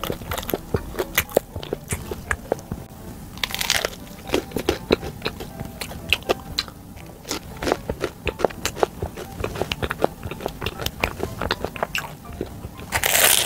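Close-miked eating of an air-fried hwang-cheese bagel: crisp crust crunching and chewing clicks, with two longer, louder crunches, one about three and a half seconds in and one near the end.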